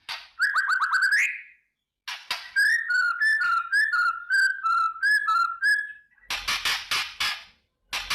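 White-rumped shama (murai batu) singing: a quick rising trill of notes, then a run of clear whistled notes stepping up and down in pitch, then harsh crackling rattles (kretekan) near the end.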